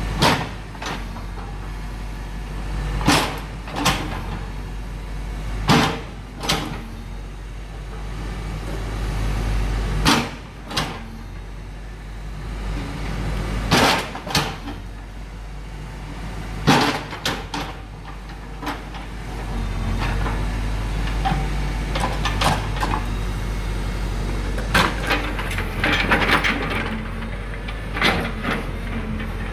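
JCB excavator's diesel engine running steadily, with about a dozen loud knocks and clanks at irregular intervals as its bucket strikes and breaks up a concrete control box.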